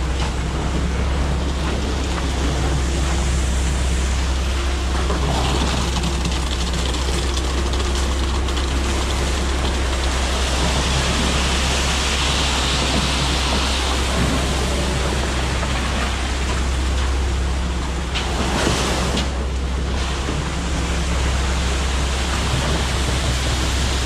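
Diesel engine of a ready-mix concrete truck running steadily, a low drone under a continuous rushing noise that swells about halfway through.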